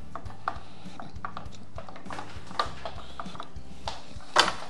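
Scattered light clicks and taps of plastic and metal parts being handled as the thin control rod is fitted to a lawn mower's plastic handle, with one louder clack about four seconds in.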